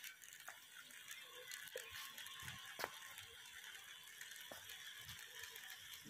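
Near silence: a faint background hiss with a few scattered light clicks.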